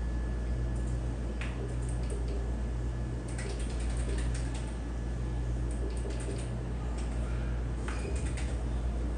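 Scattered clusters of keyboard clicks from an ultrasound machine's console being operated during measurements, over a steady low hum.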